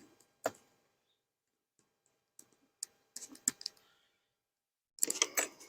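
Scattered clicks and knocks of wooden beehive boxes and frames being handled and set together: one knock about half a second in, then a cluster of sharper clicks around three seconds in and again near the end.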